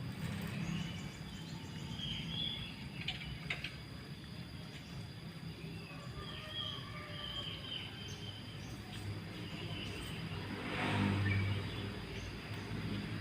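Birds chirping in short scattered calls over steady outdoor background noise, with a brief swell of rushing noise about eleven seconds in.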